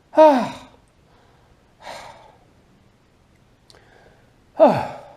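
A man sighing aloud twice, each sigh a short voiced exhale sliding down in pitch, with a softer breath between them.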